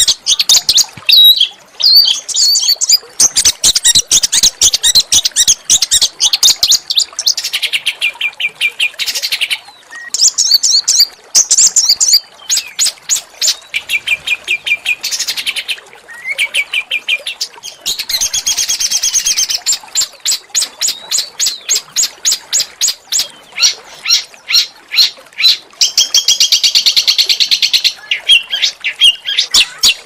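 Small songbird singing an almost unbroken, high-pitched song of rapid repeated harsh notes, with several longer rattling trills: the rough 'tembakan' phrasing used as tutor song for training murai batu.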